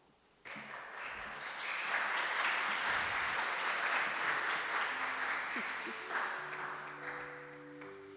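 Audience applause, starting about half a second in, swelling and then fading as it dies down. A few faint steady tones sound beneath it near the end.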